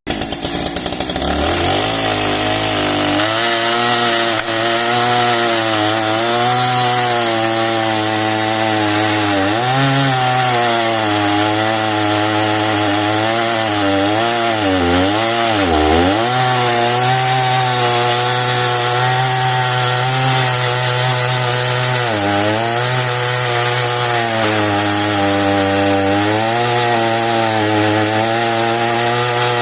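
Husqvarna two-stroke chainsaw with a 35-inch bar revving up about three seconds in, then running hard through wood. The engine note sags and recovers several times under the load of the cut, most deeply around the middle.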